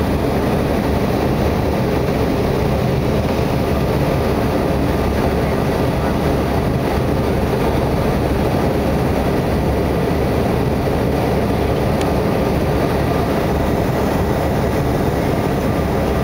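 Steady aircraft cabin noise from the engines and rushing airflow, heard inside the cabin during the descent to land. The noise is loud and even throughout, with no change in pitch.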